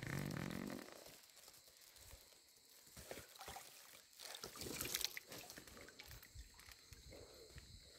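Shallow floodwater sloshing and splashing quietly as someone wades through it, with a louder splash about five seconds in. A short pitched sound comes at the very start.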